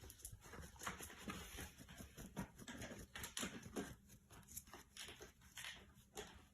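A puppy making faint, short, irregular sounds, a few each second.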